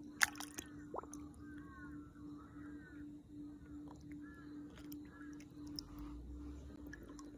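Faint water sloshing and dripping as a Murray cod is held at the surface and released by hand, with a sharp knock about a quarter second in. A faint pulsing hum runs underneath.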